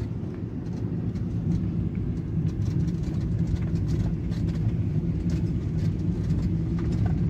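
Steady low road and engine rumble heard from inside a car's cabin while it drives.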